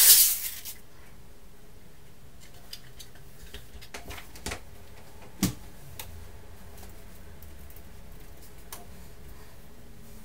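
Clear plastic protective film crinkling as it is peeled off the hard drive's glossy casing for the first half-second or so. Then a few sparse light clicks and taps, the loudest about five and a half seconds in.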